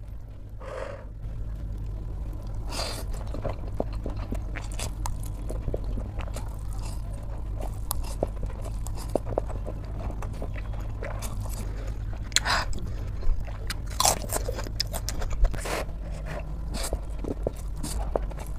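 Close-miked eating: crunching and chewing with many small clicks and several louder crunches, over a steady low hum.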